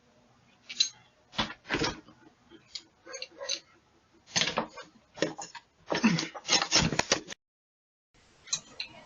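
A man banging and thudding against a front door, a run of irregular heavy knocks with snatches of his voice between them, picked up by a Ring doorbell camera's microphone.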